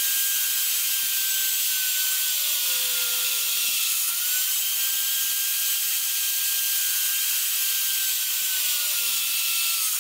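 Magnetic-base drill press running and drilling through steel angle iron: a steady motor whine over loud high hiss. The motor's pitch sags twice as the bit is fed into the steel under load, and it recovers in between.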